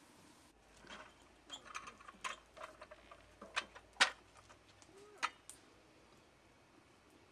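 Faceted glass tea tumblers clinking and tapping as they are set down one by one on an enamel tray: about ten light clinks, the sharpest about four seconds in.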